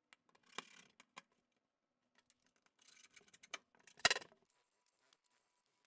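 Scattered light clicks and knocks of objects being handled, the loudest a short knock about four seconds in.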